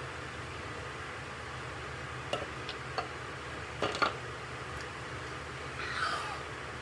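A few light clicks and clinks of a bowl and its contents being handled at a kitchen counter, a close pair of them about four seconds in, over a steady low room hum.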